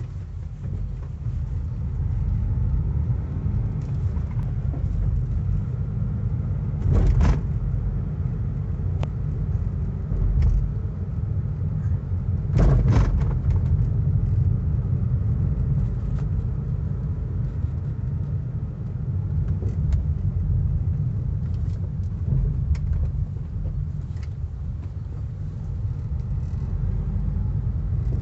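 2019 Honda Amaze driving over small bumps: steady road and tyre rumble with sharp knocks and rattles from the suspension and dashboard, the two loudest about seven and thirteen seconds in and fainter ticks between. The owner calls it a weird noise and puts it down to poor suspension quality.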